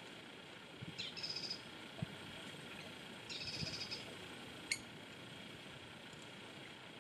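A bird calls twice in short, rapid, high-pitched chattering bursts over a steady outdoor background, with a sharp click about five seconds in.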